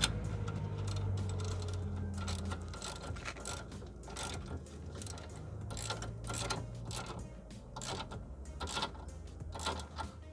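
Hand ratchet clicking in short irregular runs as it winds in a ball-joint separator on a car's front suspension joint. A low steady hum runs underneath in the first few seconds.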